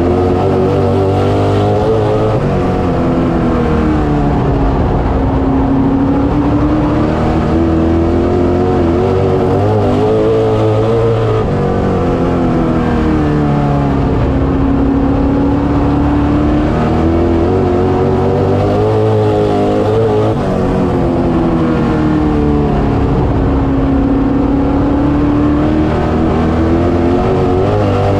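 Street stock race car's engine heard loud from inside the cockpit, lapping under racing load. Its pitch climbs on the straights and drops as the driver backs off for the turns, in a cycle repeating about every nine seconds, three times over.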